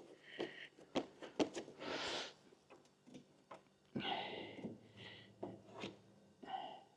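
Body filler being spread with a plastic spreader over a steel Land Rover wing: short scraping strokes with a faint squeak, between light clicks and taps of the spreader on the panel.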